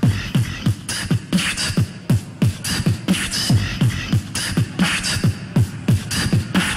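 Live beatboxing layered through a loop station. Deep kick-drum sounds drop in pitch and repeat about three times a second, with sharp click and hi-hat sounds above them, making a steady looped beat.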